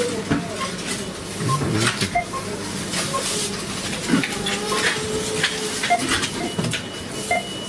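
Supermarket hubbub: distant voices, clattering and knocks, with short checkout-scanner beeps every second or so.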